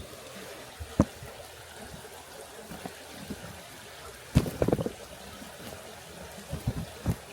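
River water flowing steadily, broken by sharp knocks and clicks: one about a second in, a quick cluster about four and a half seconds in, and a few smaller ones near the end.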